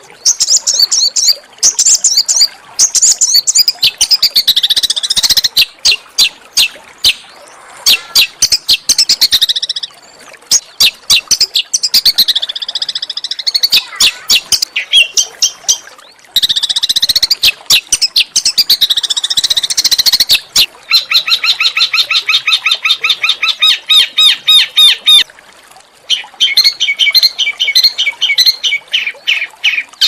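Loud, varied songbird song of the harsh 'tembakan kasar' kind: rapid clicking and chattering notes mixed with high whistles that sweep up and down. About three-quarters of the way through comes a long, very fast, even trill, and near the end another fast trill.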